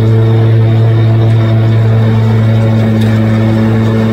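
Exmark Lazer Z zero-turn mower's engine running at a steady, even pitch while it cuts grass.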